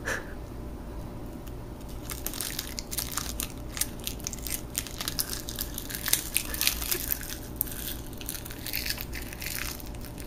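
Toddler biting and chewing crisp roasted Korean seaweed sheets (gim): a quick run of small crackly crunches that starts about two seconds in and goes on until near the end.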